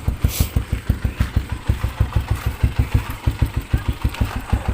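Motorcycle engine idling through an aftermarket chicken-pipe exhaust packed with steel wool, giving a steady, even beat of quick exhaust pulses.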